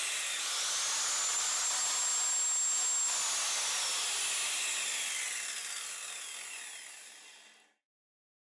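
Old Makita 5601N corded circular saw running free with no cut: the motor's whine rises as the blade spins up, holds steady for about two seconds, then falls away after it is switched off, and the blade coasts down to a stop near the end.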